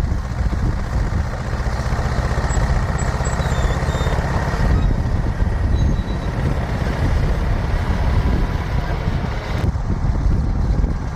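John Deere 450 crawler dozer running, its engine a steady drone with continuous low rumble from the machine.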